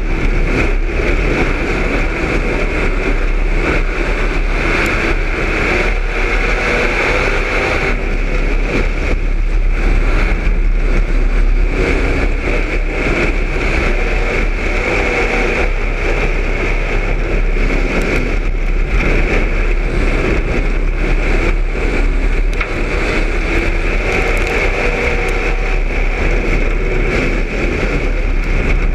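Street stock race car's V8 engine running hard on a dirt oval, heard from inside the car, its pitch rising and falling as the driver works the throttle through the turns, with rattling from the car and rushing noise.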